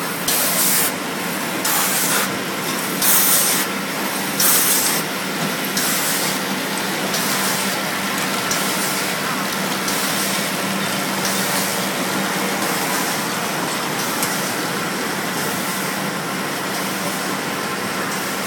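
A horizontal flow-wrap packaging machine running steadily as it wraps single toilet paper rolls in plastic film, with a low hum. A short hiss repeats about every one and a half seconds and fades after about ten seconds.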